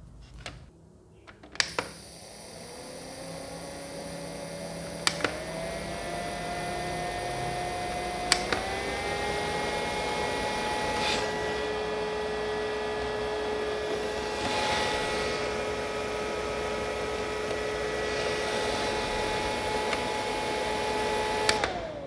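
Mini evaporative air cooler fan's small electric motor is clicked on with a button and spins up with a rising whine. Two more clicks step it up through its speed settings, each raising the pitch. It runs steadily at its top 'strong wind' setting, then a click near the end switches it off and the whine falls away.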